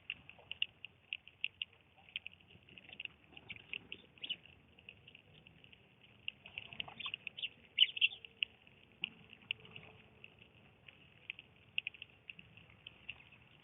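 Small birds chirping continuously: many short, high chirps overlapping at an uneven pace of several a second, with a few louder clusters.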